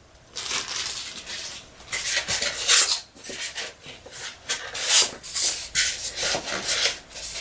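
Packaging being rustled and rubbed by hand as model parts are unpacked, in irregular scrapes with a few small clinks.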